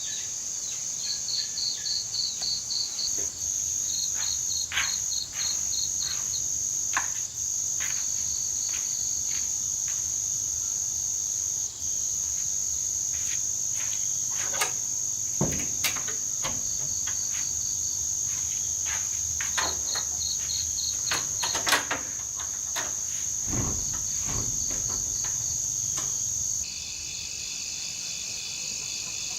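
Insects chirping in a steady chorus: a continuous high trill with quicker pulsed chirps beneath it, over a light background with scattered short clicks and knocks. Near the end the high trill stops abruptly and a different, lower set of chirping insects carries on.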